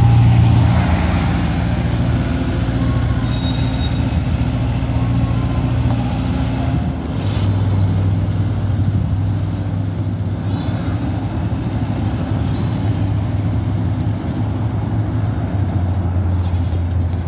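A vehicle engine running with a steady low hum; its pitch drops a little about seven seconds in.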